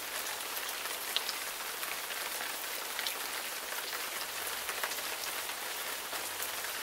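Steady rain falling, an even hiss with a few sharper individual drop hits scattered through it.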